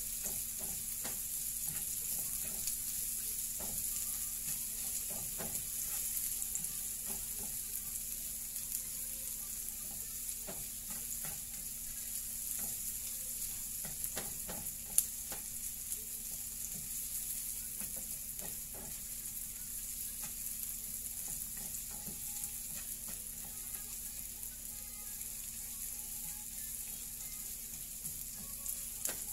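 Sliced onion sizzling steadily in hot oil in a non-stick frying pan as it softens and browns, with a spatula scraping and tapping the pan now and then. One sharper click about halfway through.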